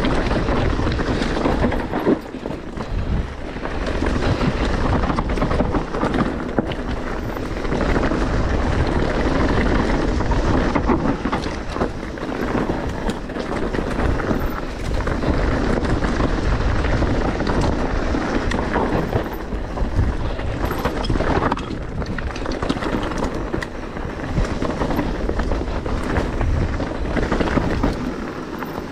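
Specialized Turbo Levo electric mountain bike riding fast down a rough trail: tyres rolling over rocky ground, with many small clicks and rattles from the bike, and wind buffeting the microphone.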